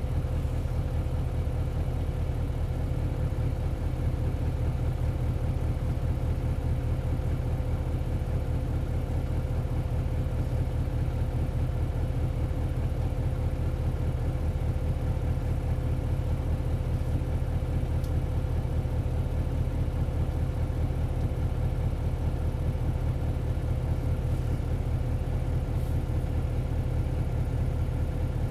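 Isuzu 8PE1-S V8 diesel of an Isuzu Cubic KC-LV280L city bus idling steadily, heard from inside the bus, its pitch holding level throughout.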